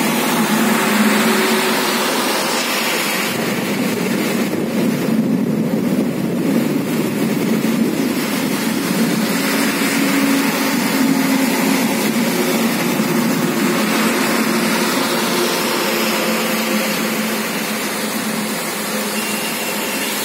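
Steady rushing of heavy rain and gusty wind in a storm, thinning briefly in the higher range about four to seven seconds in.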